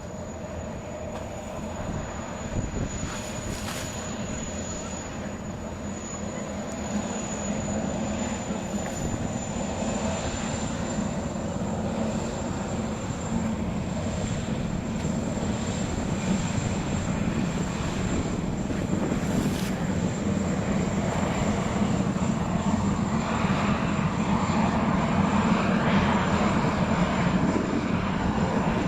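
Jet boat engine running: a steady rush of engine noise with a thin high whine above it, growing gradually louder.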